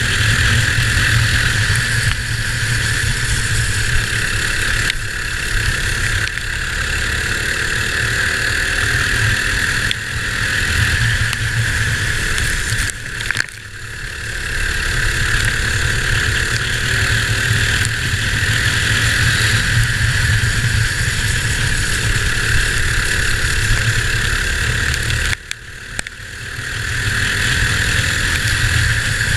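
Sealed Predator 212cc single-cylinder go-kart engine running at high revs on full throttle, heard from on board. Twice, about twelve seconds apart, the sound drops away briefly and then winds back up.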